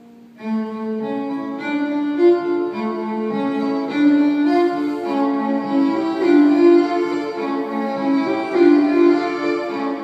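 Live solo violin music: bowed notes held and layered over one another in a slow, changing melody. It comes back in about half a second after a brief lull.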